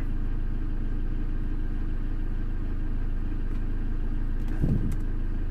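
Ford Transit 2.4 TDCi four-cylinder diesel engine idling steadily, heard from inside the cab.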